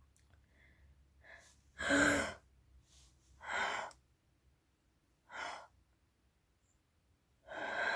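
A woman's stacked-breathing exercise: deep, audible breaths in, taken one after another about a second and a half apart, then a longer breath starting near the end. This is a respiratory exercise to open the lungs and build a more forceful cough.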